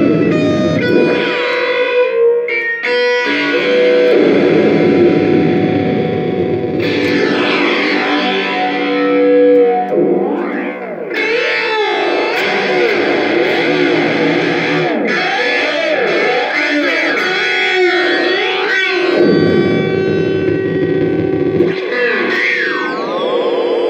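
Electric guitar played through a circuit-bent Joyo Classic Flanger pedal, the flanger sweeping the tone up and down in swooping, wavering arcs. Near the end a long falling sweep slides down through the notes.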